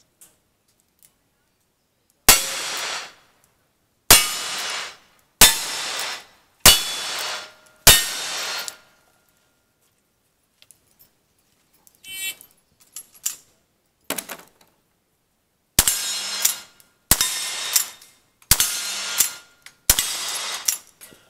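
Five revolver shots about 1.3 s apart, each with a short echo, then a few light clicks and clatter while the shooter changes guns. After that come four lever-action rifle shots at the same steady pace, with a metallic ring after the hits on steel targets.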